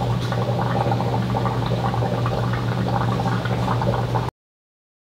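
A steady low hum under a bubbling, gurgling liquid sound, cut off abruptly a little over four seconds in.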